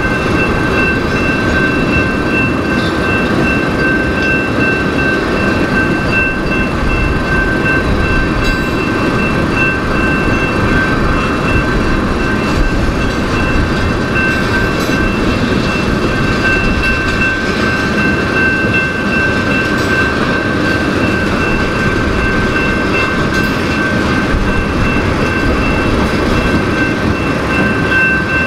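Freight train of tank cars rolling through a grade crossing: a loud, steady rumble and clatter of wheels on the rails. Over it, the crossing's bell rings on without a break.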